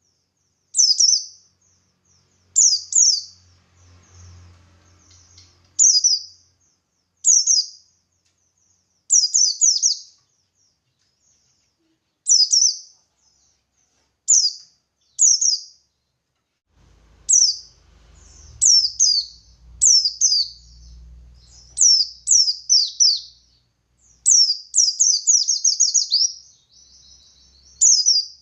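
Buxtoni white-eye (pleci buxtoni) calling: short, high, downward-sliding chirps, single or in quick pairs and triplets every second or two, running into a faster, denser string near the end.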